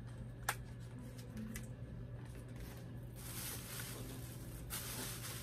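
Doll packaging being handled: a sharp click about half a second in and a few light ticks, then louder crinkling and rustling of plastic and paper from about three seconds in.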